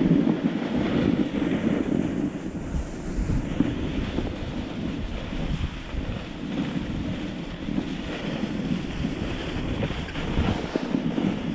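Wind buffeting the camera microphone while sliding over chopped-up, tracked snow, with a rough, uneven rumble from the snow surface under the rider.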